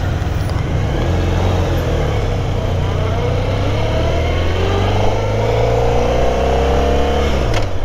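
Motorcycle engine running under way. Its pitch dips, then rises steadily over several seconds as the bike accelerates, before the sound cuts off suddenly near the end.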